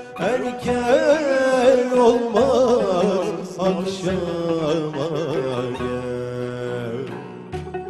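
A male voice singing a Turkish classical şarkı in makam hicazkar, with melismatic runs and vibrato, accompanied by plucked string instruments.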